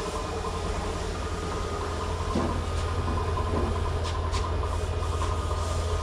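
Steady low machine hum with a thin steady whine over it, from equipment running in a lure factory's paint room; a few faint clicks about four seconds in.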